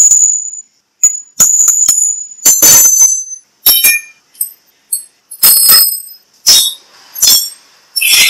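An irregular series of sharp metal-on-metal knocks and clinks, each with a high bell-like ring, as a hand tool strikes the mild steel round job held in the lathe chuck, typical of tapping the work true to take out its runout.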